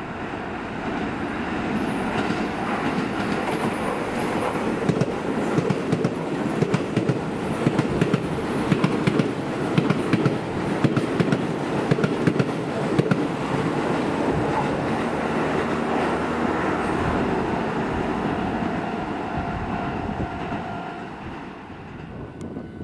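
Keisei Main Line electric train running past, its wheels clattering over the rail joints in a steady run of clicks through the middle. The sound then evens out and fades near the end.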